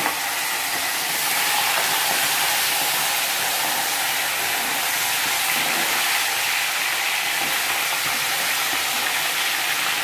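Marinated chicken pieces frying in hot oil in a kadhai: a steady sizzle.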